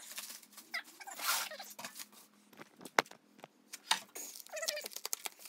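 Clear plastic wrap rustling and crinkling as it is handled on an induction heater unit, with scattered clicks and one sharp knock about three seconds in.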